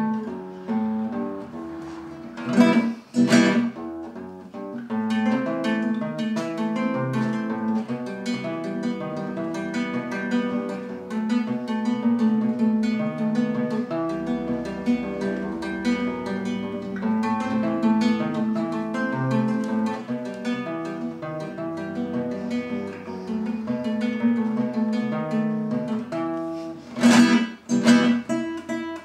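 Nylon-string classical guitar playing a rumba: a plucked melody over a steady bass, with loud strummed chords about three seconds in and again near the end.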